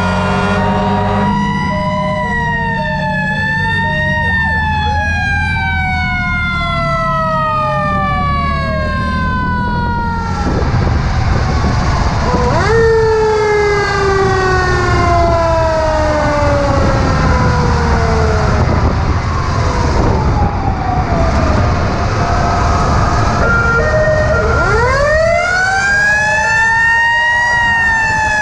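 Fire trucks' mechanical sirens winding up and coasting down in long falling wails, several overlapping, with short steady horn blasts near the start. About ten seconds in the sound comes from close on board a ladder truck: its siren winds up and falls away slowly over a heavy low rumble, then winds up again near the end.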